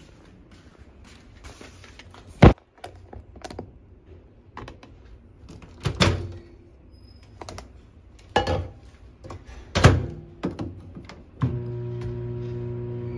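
Knocks and clatters of a plastic lunch box and bag being handled and the microwave door being opened and shut. About a second and a half before the end a click, then a dial-type countertop microwave oven starts running with a steady hum.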